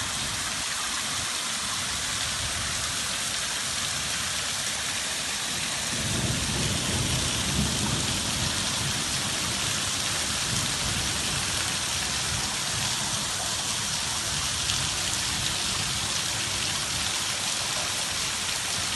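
Heavy rain pouring onto a street, a steady dense hiss of drops splashing on pavement and runoff. A low rumble swells about six seconds in and continues underneath.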